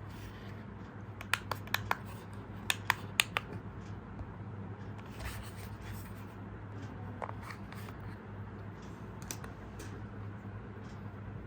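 A handful of sharp clicks in two quick clusters, with light scratching and rubbing from handling small objects, over a steady low hum.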